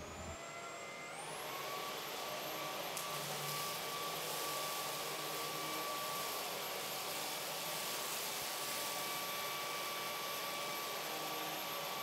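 Roidmi cordless stick vacuum motor spinning up about a second in, its whine rising in pitch, then running steadily with a high whine over a rush of airflow.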